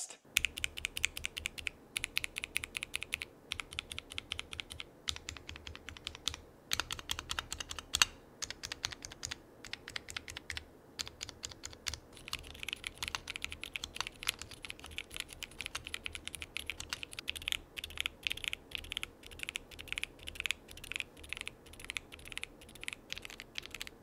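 Typing sound test on an Akko ACR Pro 68 mechanical keyboard with Akko golden yellow switches in a two-piece acrylic case: a fast, steady run of keystroke clacks with a few brief pauses and one louder stroke about eight seconds in.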